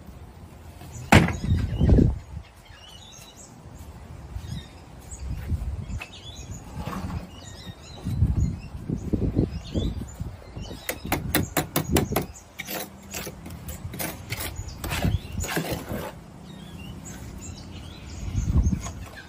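Work noise from handling a steel wheelbarrow of render mix and a plastic quoin mould: two loud clunks about a second in, then irregular knocks and scrapes, with a quick run of sharp clicks a little past the middle.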